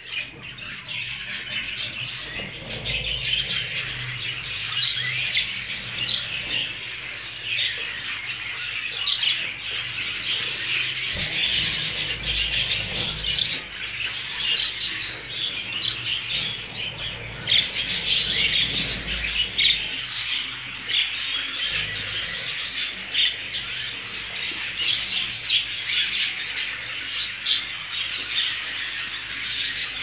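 A flock of budgerigars chattering, with many quick high chirps overlapping without a break.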